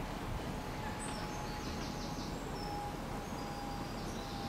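Outdoor ambience: a steady hiss of background noise with a faint steady tone under it, and small birds chirping briefly about a second in and again near the end.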